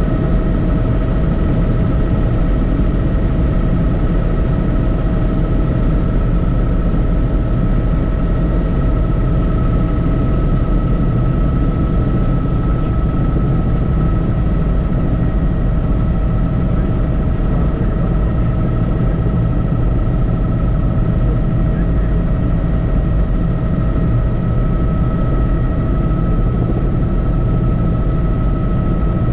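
Helicopter in steady flight: a loud, unchanging low drone of rotor and engine with a steady high whine over it.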